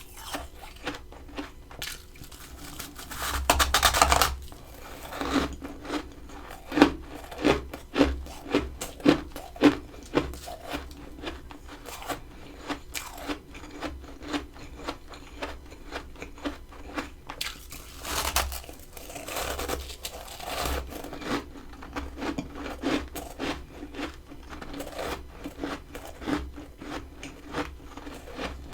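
Close-miked biting and chewing of freezer frost: a long crunchy bite about three seconds in and another near eighteen seconds, each followed by a run of crunching chews, a few a second.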